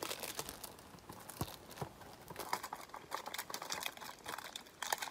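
Clear plastic wrapping on a Blu-ray case crinkling and tearing as it is picked at and peeled off by hand, a faint run of small, irregular crackles.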